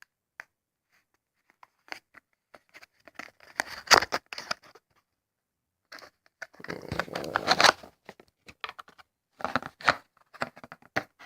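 Flashlight packaging being opened and handled: scattered clicks and rustles, with a longer tearing stretch a little past halfway.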